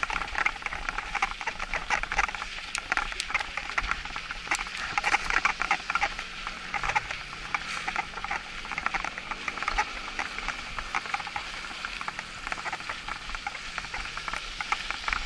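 Mountain bike tyres crunching over packed snow, a dense steady crackle of small clicks and rattles.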